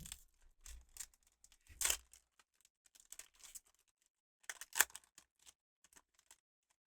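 Foil wrapper of a Pokémon booster pack and the trading cards inside rustling and crinkling as they are handled, with two louder crackles about two seconds and five seconds in.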